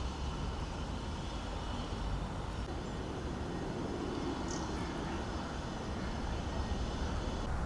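Steady outdoor background noise with a low rumble, and a faint, high, steady whine that cuts off near the end.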